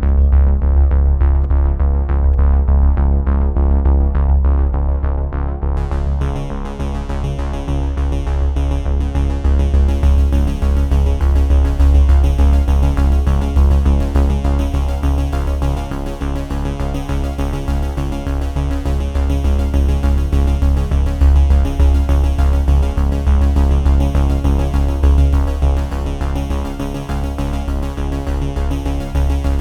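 Electronic synthesizer music with a steady heavy bass; the treble is muffled at first and opens up about six seconds in.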